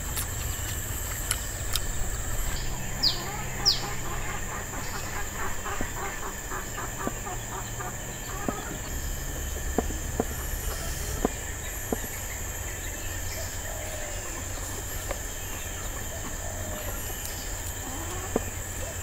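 Outdoor rural ambience: a steady high insect drone, with a bird, most likely a chicken, clucking in a quick run of short notes a few seconds in, and a few faint clicks.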